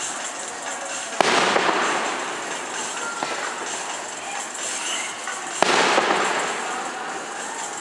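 Fireworks display: two loud bangs, about a second in and about five and a half seconds in, each followed by a second or so of crackling, over a steady background crackle.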